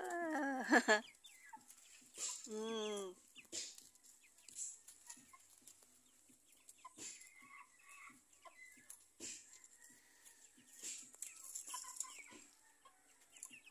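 A flock of chickens feeding, clucking and calling softly, with scattered light clicks from pecking and scratching at the ground.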